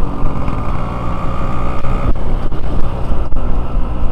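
Yamaha RX-King's two-stroke single-cylinder engine running steadily as the motorcycle is ridden along the road, with rushing air on the microphone.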